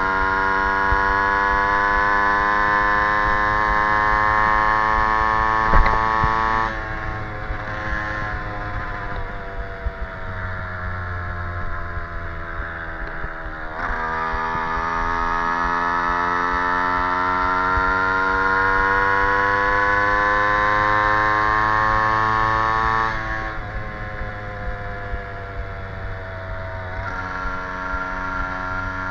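Stadion S11 moped's 50cc two-stroke engine running on the road. Its buzzing note climbs steadily in pitch as speed builds, then drops in loudness and sinks in pitch twice, about seven seconds in and again near twenty-three seconds, before picking up again.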